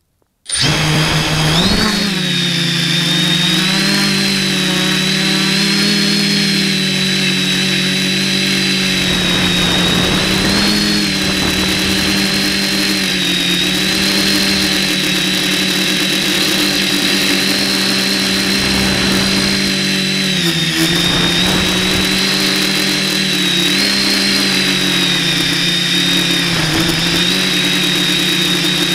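Spider 450 quadcopter's electric motors and propellers, heard from its onboard camera: they spin up suddenly about half a second in, then run as a loud, steady buzz with a high whine. The pitch shifts slightly up and down as the throttle changes in flight.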